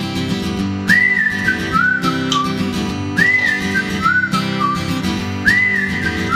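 Background music: a whistled tune over strummed acoustic guitar. The same short phrase comes three times, each time jumping up and then stepping down.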